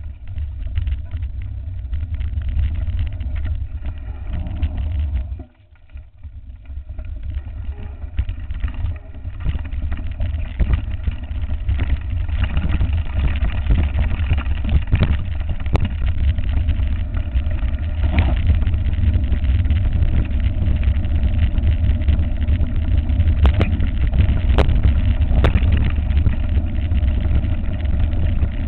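Mountain bike riding a rough trail, heard from a camera mounted at the handlebar: a steady low rumble of wind and tyres rolling over the ground, with rattling and sharp knocks as the bike jolts over bumps. The sound drops out briefly about five seconds in and is louder from about ten seconds on.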